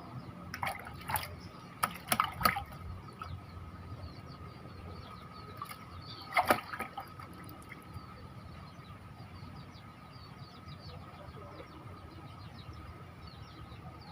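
Water sounds at a fishing spot: a quick run of short splashes or slaps from about half a second to two and a half seconds in, and another near six and a half seconds, over a steady faint high tone and small chirps.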